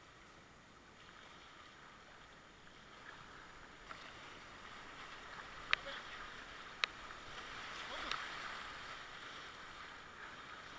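Whitewater rushing past a kayak running a rapid, with paddle strokes splashing; the water noise swells from about four seconds in and peaks near eight seconds. Two sharp knocks stand out around the middle.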